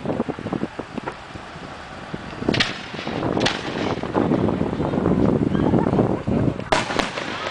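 Display aerial firework shells going off: sharp bangs about two and a half and three and a half seconds in, then two more in quick succession near the end, over a low rumble that swells in between.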